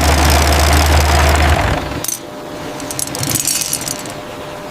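A vehicle engine running with a steady low rumble, stopping about two seconds in. After that comes quieter clinking and rattling, like glass bricks shifting.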